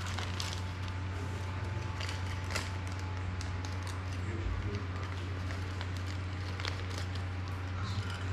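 Scattered light clicks and taps of small plastic and metal parts being handled while an FPV drone frame and its prop guards are reassembled by hand, over a steady low hum.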